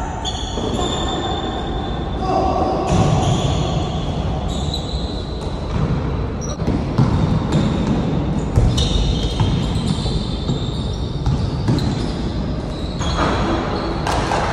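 Basketball game sounds: the ball bouncing on the court at an irregular pace, with players' voices calling out in between.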